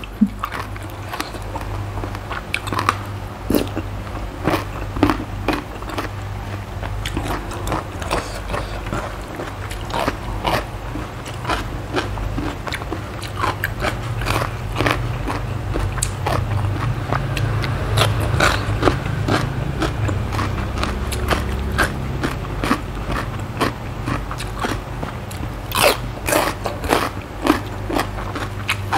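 Close-miked chewing and crunching through mouthfuls of Thai cucumber salad with chicken feet and fresh lettuce, with irregular wet, crisp clicks and crunches throughout. A steady low hum runs beneath.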